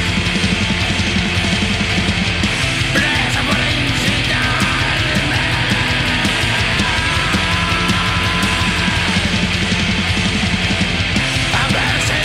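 Black metal song: distorted guitars over fast, steady drumming, with a faint melody line above in the middle of the passage.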